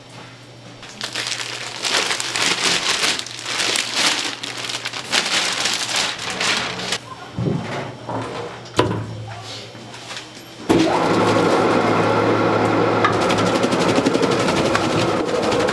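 Fish cake production machinery running: irregular crackling and clicking over a steady low motor hum. About eleven seconds in, a louder, steady sound with held tones suddenly takes over.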